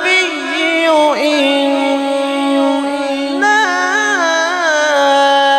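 A male qari's voice reciting the Quran in the drawn-out, melodic tilawat style, holding long notes with wavering ornaments and no break for breath.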